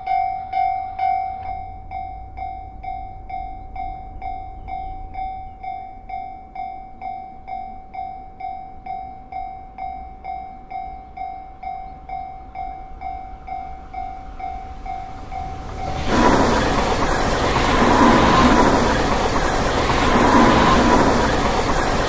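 Japanese level-crossing warning bell ringing, an electronic ding about twice a second that drops in volume about a second and a half in. About sixteen seconds in an electric train arrives and passes with a loud, steady rush of wheel and running noise that drowns out the bell.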